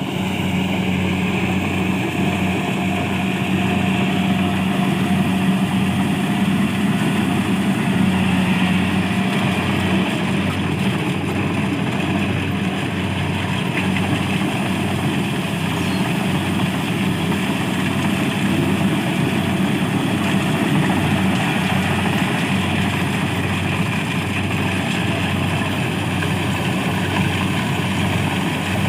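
Engine of rice harvesting machinery running steadily at a constant speed, with an even low hum that does not change.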